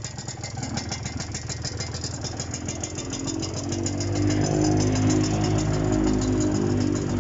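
Kawasaki AR125R's two-stroke single-cylinder engine running, growing louder about four seconds in.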